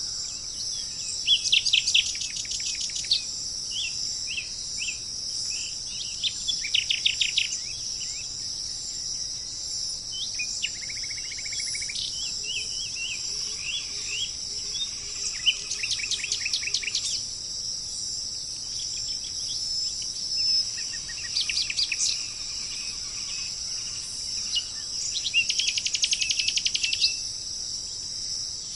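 Songbirds singing short, rapid trilled phrases every few seconds over a steady, high-pitched insect drone.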